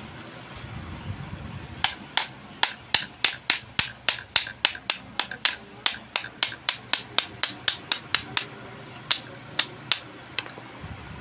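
A quick series of sharp metallic taps on the seized, rusted armature of an electric grinder, about three a second for several seconds, then a few slower ones near the end.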